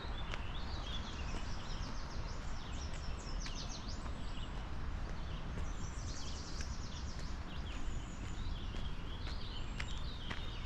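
Several small songbirds singing in quick chirps and trills over a steady low rumble. A walker's footsteps on the path are heard at the start and again near the end.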